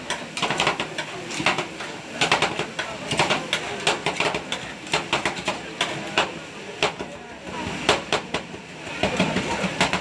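Two metal spatulas chopping and scraping on the steel freezing plate of a rolled-ice-cream machine, working Oreo biscuits and banana into the freezing cream: an irregular, rapid clatter of sharp taps and clicks.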